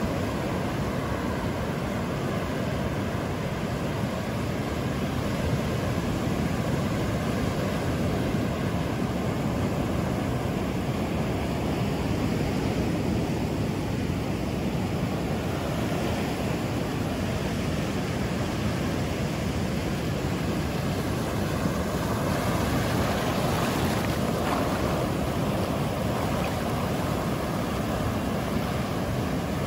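Ocean surf washing onto a sandy beach: a steady rushing noise of waves.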